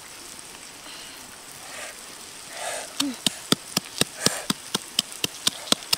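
A stone pounding salt and chili in a coconut-shell bowl: sharp, evenly spaced knocks, about four a second, starting about halfway in.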